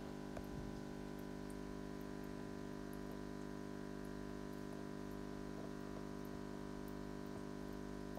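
Steady electric hum with several held tones, typical of an aquarium air pump running the tank's sponge filters, with a few faint ticks scattered through it.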